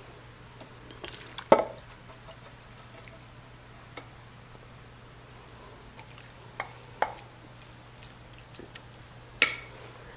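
Browned ground beef, onions and peppers being scraped from a nonstick skillet into a slow cooker's crock with a wooden spoon: a few scattered knocks and scrapes of spoon and pan against the crock, the loudest about one and a half seconds in, over a faint steady hum.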